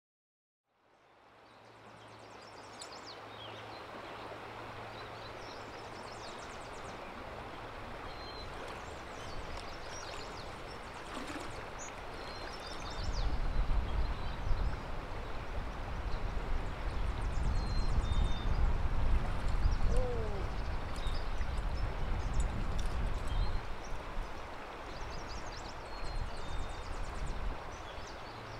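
Flowing stream water, a steady rushing hiss that fades in after a second of silence, with short bird chirps now and then. About halfway in, a louder low rumble joins it.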